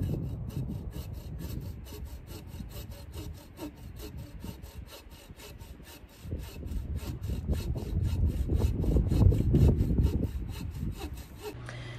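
Hand saw cutting through a red cedar post, a steady run of back-and-forth strokes, easing off for a moment midway and then picking up harder again.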